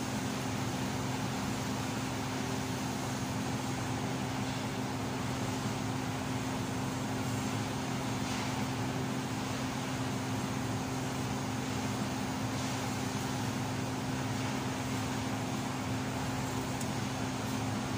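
TIG welding machine giving a steady electrical hum with an even hiss over it, with a few faint ticks.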